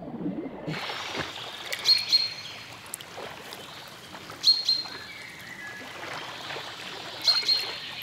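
Water lapping and splashing softly around a Eurasian beaver swimming at the surface with a branch in its mouth. A small bird chirps in quick double notes three times, the loudest sounds.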